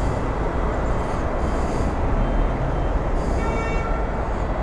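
Steady low rumble of road traffic, with a faint high whine for about a second past the middle.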